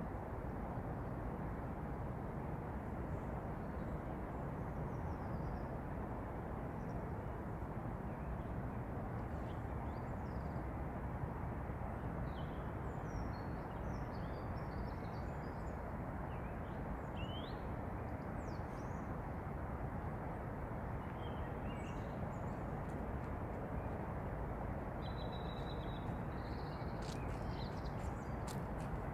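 Steady outdoor background rumble and hiss, with faint birds chirping now and then, one brief steady trill about 25 seconds in. Near the end a few crisp clicks come as footsteps reach the camera on the leaf-strewn path.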